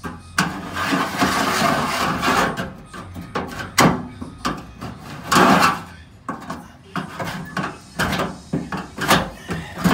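Screwdriver tip scratching along the sheet metal of a Chevy truck bed, scribing a cutting line: one long scraping stroke of about two seconds near the start, then a series of shorter scratches.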